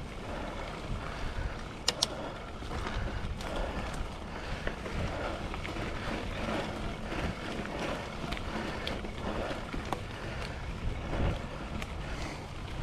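Mountain bike rolling over a dirt trail: steady wind rumble on the microphone and tyre noise, with scattered sharp clicks and rattles from the bike, the loudest two about two seconds in.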